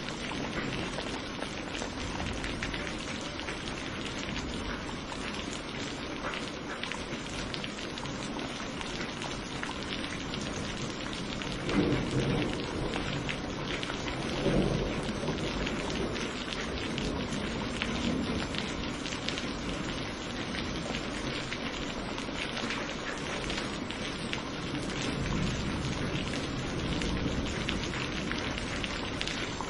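Steady rain falling and pattering on surfaces. About halfway through, two rolls of thunder come a couple of seconds apart, the second rumbling on for a few seconds before fading back under the rain.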